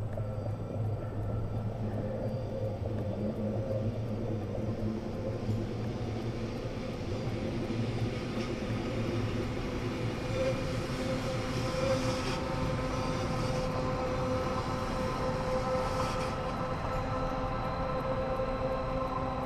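Metre-gauge MBC electric train running past: steady rumble of wheels on the rails with a level electric-motor whine that grows a little stronger in the second half.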